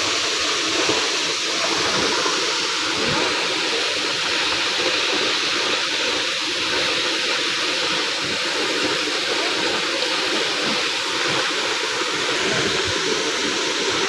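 Waterfall: water pouring and splashing in a steady, loud rush.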